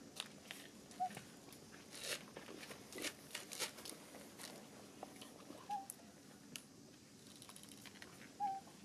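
A macaque chewing food: irregular crunching clicks and crackles, densest in the first half. Three brief, short chirps sound about a second in, near the middle and near the end.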